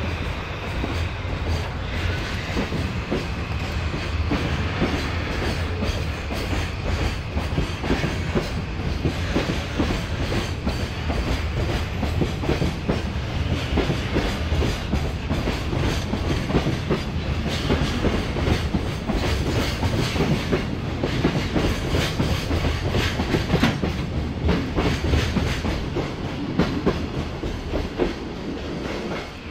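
Container wagons of a long freight train rolling past, their wheels clattering steadily over the rail joints. The sound drops away near the end as the last wagon passes.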